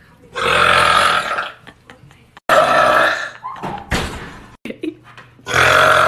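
A man burping loudly: three long burps of about a second each, with a short sharp click between the second and third.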